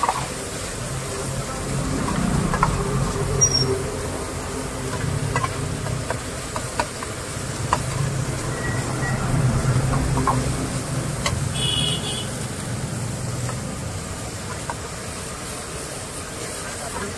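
Metal ladle scraping and tapping against an iron wok while onions and tomatoes fry, with scattered sharp clinks. Under it is a low rumble that swells twice.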